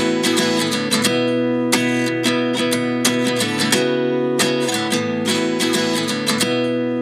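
Background music: strummed acoustic guitar chords in an instrumental break of a pop song, with no singing.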